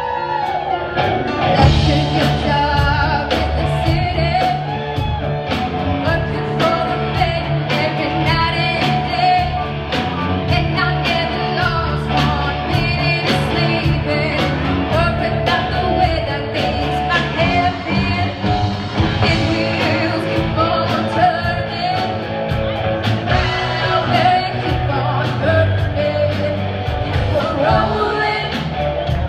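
Rock band playing live: drum kit, electric guitars and keyboard, with a singer's voice over them.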